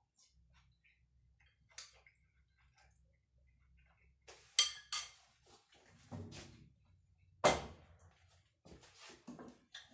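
A metal spoon clinking against a ceramic bowl while eating: scattered sharp clinks, the loudest pair about halfway through. Near the end, dishes and utensils clatter at the stove.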